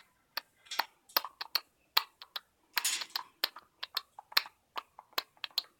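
Galah drumming with a stick: a quick, uneven run of sharp taps and clicks, about four or five a second, with the bird's and a person's rhythm clicks mixed in.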